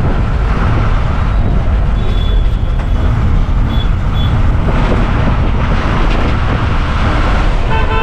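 Diesel bus under way, heard from inside the cabin at the front: steady engine rumble mixed with road and traffic noise.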